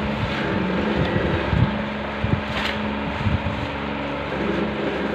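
A steady mechanical hum runs throughout. A few soft bumps and rustles come as the paper-and-ribbon-wrapped bouquet is handled.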